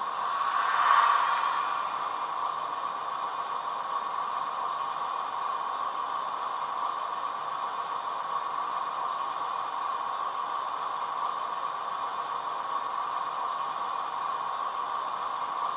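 Steady hiss with an even hum at one pitch from a narrow-gauge model railway, its diesel locomotive standing at the platform with lights on; the sound swells briefly about a second in.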